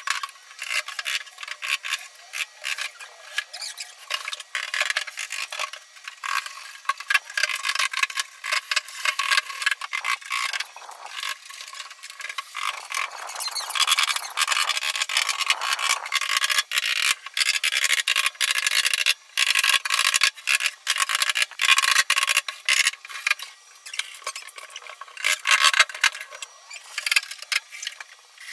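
Sped-up, high-pitched clatter of wardrobe assembly: rapid knocks, scrapes and squeals of wooden cabinet panels and doors being handled and fitted.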